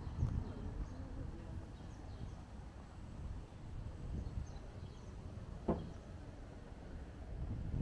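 Outdoor street ambience: an uneven low rumble of wind on the microphone and distant traffic, with faint high chirps and a short squeak about six seconds in.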